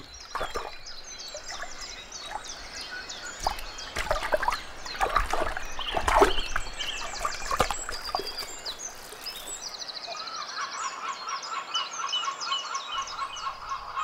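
Small birds singing and twittering, with a fast repeated trill from about ten seconds in. In the middle come a few sharp splashes, as a great crested grebe shakes a crayfish in the water.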